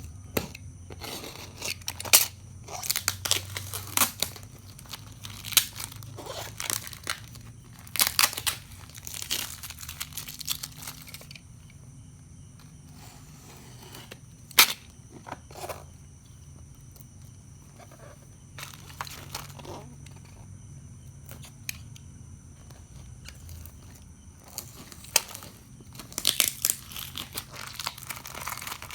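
Plastic packaging crinkling and crackling in irregular bursts as it is handled and pulled open, with single sharp snaps now and then.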